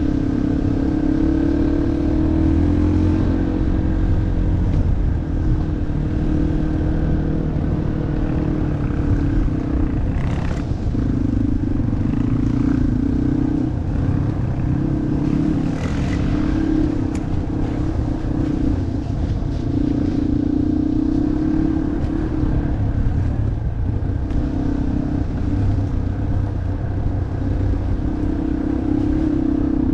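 Off-road motorcycle engine running under a varying throttle, its pitch rising and falling every few seconds, over a steady low rumble. There are a couple of brief knocks around the middle.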